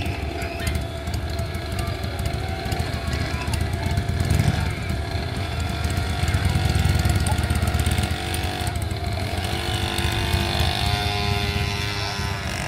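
Motorcycle engine running with a heavy low pulse, revving up and down; it is loudest a little past the middle, and its pitch dips and rises again near the end.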